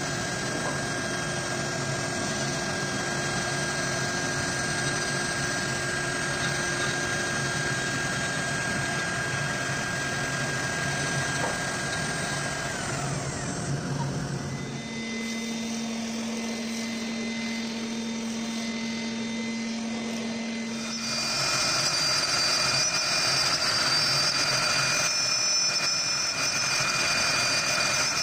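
Avid CNC router spindle running and cutting wood with a steady whine. About halfway through the whine falls away in pitch and a low hum is left, then from about two-thirds of the way in the spindle runs again, louder and higher.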